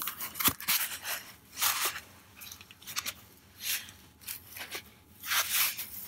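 Foam pipe insulation being wrapped by hand around a copper water-heater pipe: a string of short, irregular rubbing and scraping noises of the foam, with one sharp click about half a second in.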